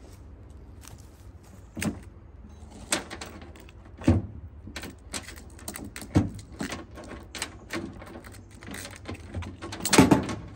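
A chainsaw chain being swapped by hand: an irregular run of metal clicks, knocks and rattles as the parts are handled, with the loudest knock near the end.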